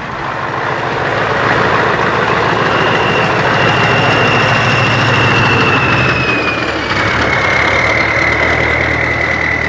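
Scania 143H 450 V8 truck engine, straight-piped, running loud at low speed as the tractor unit rolls slowly past. A high whistle that slowly falls in pitch rides over the engine from about three seconds in.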